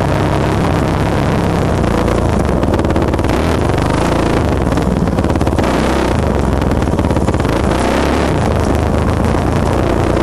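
2007 Yamaha YZ450F dirt bike's single-cylinder four-stroke engine running under load, recorded from on the bike, the revs rising and falling with the throttle.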